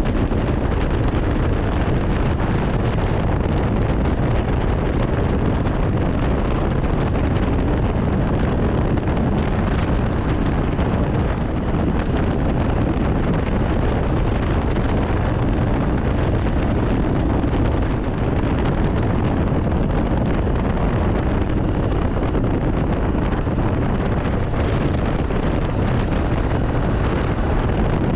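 Steady wind rush over the microphone at riding speed, with the Honda CB500X motorcycle's parallel-twin engine running underneath.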